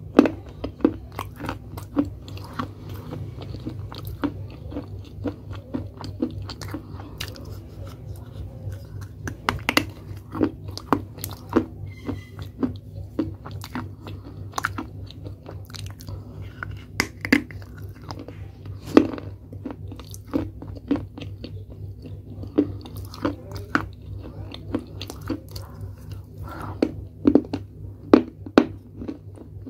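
Close-up chewing of pieces of a dried clay pot: many crisp, irregular crunches, a few louder bites among them, over a steady low hum.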